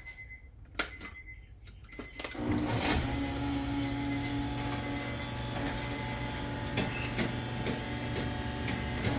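A couple of sharp clicks, then about two and a half seconds in an electric garage door opener starts and runs with a steady motor hum as the door moves.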